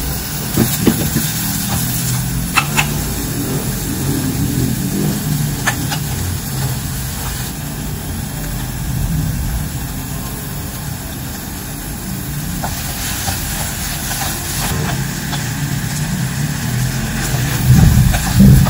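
Construction machinery engine running steadily, with a louder surge near the end. A few light knocks from cooking utensils on the pot come in the first few seconds.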